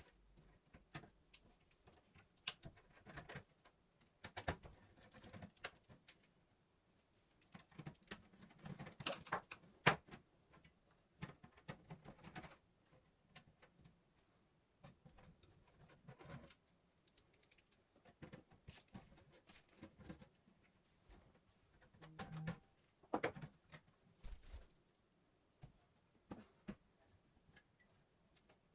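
Scattered light clicks, taps and knocks at irregular times: hands handling the parts of a desktop PC as it is taken apart.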